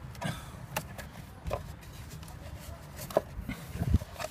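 Scattered knocks and clicks of plastic as a new panel air filter is worked by hand into a car's plastic air filter box, with a heavier thump near the end.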